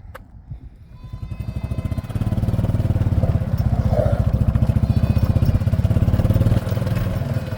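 A vehicle engine starting up about a second in and then running steadily at a low idle.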